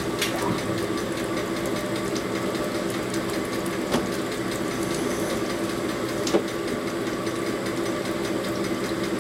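Cylinder-honing machine running with a steady hum while the cylinder is checked, with two sharp metallic clinks, one about four seconds in and another over two seconds later.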